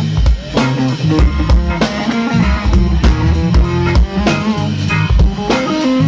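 A live band playing: an electric guitar plays a melody of changing notes over a drum kit.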